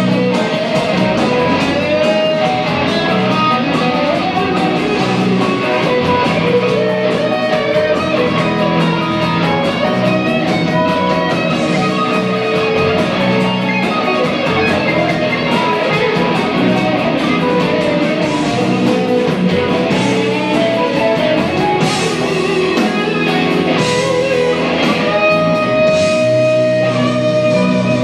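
Live blues-rock band playing an instrumental passage: electric guitars over bass guitar and drums.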